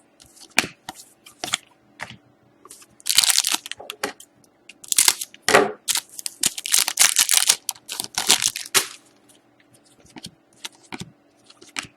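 Foil trading-card pack wrapper being torn open and crinkled, in a series of sharp rustling, crackling bursts with small clicks of handling between them.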